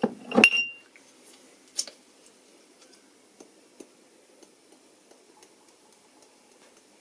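Pepper mill grinding over a frying pan: sparse, faint ticks and clicks after a brief clink with a ringing note at the very start.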